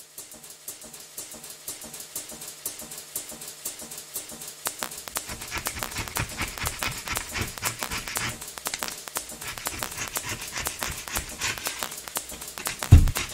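Background music with a quick, busy rhythm, growing louder over the first few seconds.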